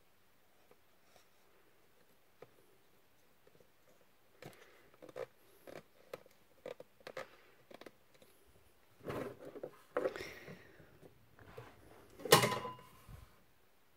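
Quiet handling noise on a work table: scattered light clicks and taps, then rustling. Just after twelve seconds there is one sharp knock with a brief ring as hands take hold of a 3D-printed plastic jig. The drill is not running.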